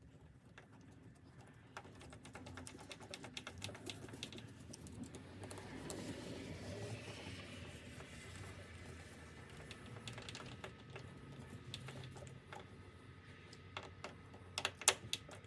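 Screws being driven into a deadbolt latch faceplate in the edge of a door: a run of quiet, irregular small clicks and scraping, with a couple of sharper clicks near the end.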